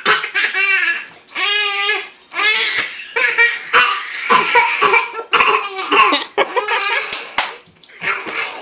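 A person fake coughing again and again, with a baby laughing in high-pitched bursts between the coughs.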